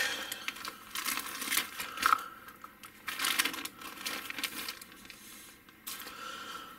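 Clear plastic kit bag crinkling and rustling in irregular bursts as a grey plastic model-kit sprue is worked out of it; the rustling eases off after about four seconds.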